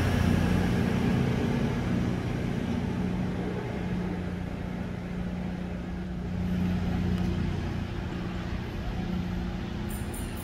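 Class 220 Voyager diesel-electric multiple unit pulling away, the steady drone of its underfloor diesel engines slowly fading as the train draws off.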